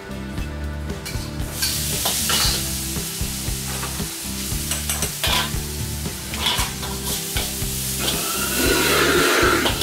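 Meat and chopped chillies sizzling in hot oil in a carbon-steel wok, with a metal ladle tapping and scraping the wok as it stirs. The sizzle grows louder near the end as the chillies go in and the stirring picks up.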